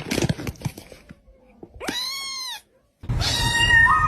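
Domestic cat meowing: one short meow that rises and falls about two seconds in. After a brief break, a longer drawn-out cry steps up in pitch near the end.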